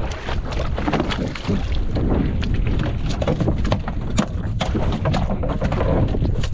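Wind buffeting the microphone over a low, steady boat rumble, with many sharp knocks and slaps against the boat as a marine catfish is gaffed aboard and dropped into the hold.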